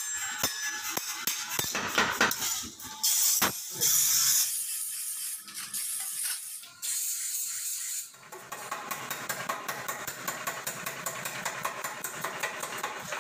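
Metal workshop sounds: hammer blows on a steel trowel blade over an iron anvil block, then loud hissing bursts, and from about two-thirds in a machine running steadily with a fast rattle.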